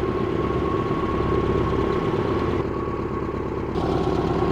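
1958 Volkswagen Bus's air-cooled flat-four engine running steadily with a fast, even pulse. The hiss above it drops away for about a second just past the middle, then returns.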